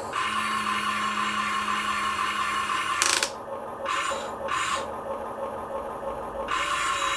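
The small electric motors and gears of a 1/24-scale RC Caterpillar construction vehicle whirring as it is worked. The sound stops and starts, with a sharp burst about three seconds in and two shorter ones a second or so later.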